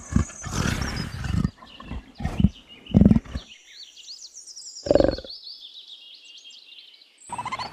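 Jaguar calling: one long low call, then three short ones spaced about a second or two apart, with faint bird chirps in the background.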